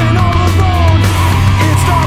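Loud heavy rock music with a sung vocal line over a steady bass.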